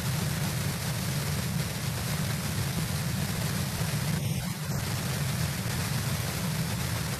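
Steady rushing background noise over a low rumble, with no bird calls. The upper hiss thins briefly a little past halfway.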